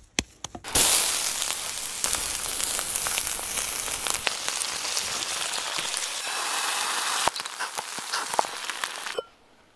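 A few sharp slaps of a minced-beef patty being shaped between the hands, then the hamburg patty sizzling loudly on a wire grill over charcoal. Near the end, sauce hisses and sputters as it is squeezed into a hot pan.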